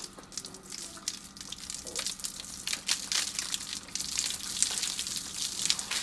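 Water from a garden hose splashing over a horse's legs and spattering onto a wet concrete floor, in irregular splashes as a hand rubs the water in.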